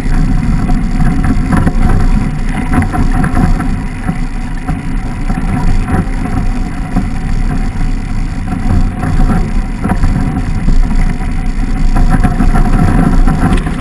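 Wind buffeting the microphone of a handlebar-mounted camera on a mountain bike rolling down a snowy track, with the crunch of the knobby tyre on snow and the rattle of the bike over the bumps.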